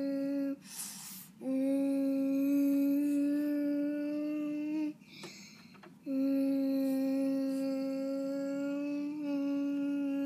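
A child humming one steady note, held for three or four seconds at a time in three long stretches broken by short breaths; the pitch lifts slightly at the end of each stretch.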